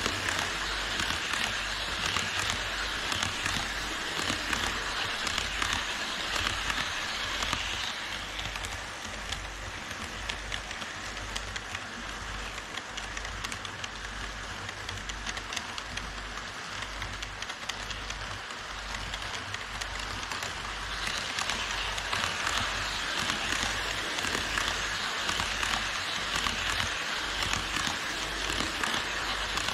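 HO scale model trains running on the track: a steady rushing of wheels rolling on the rails, with fine rapid clicking. It is louder in the first several seconds and again for the last third, while the E5 Shinkansen set passes close, and quieter in between, while the double-headed EH500/EF210 container freight passes on the farther track.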